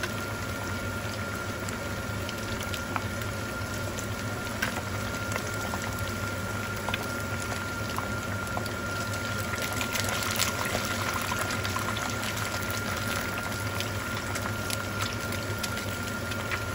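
Pork runners (bulaklak) deep-frying in a panful of hot oil: a steady sizzle and bubbling with scattered crackling pops.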